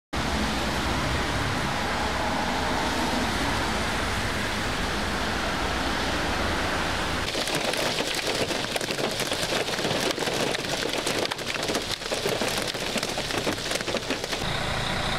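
Heavy storm rain: a steady rushing roar at first, then from about seven seconds in a dense, rapid pattering of rain striking the car, heard from inside it. Near the end it changes to a steadier rush with a faint hum.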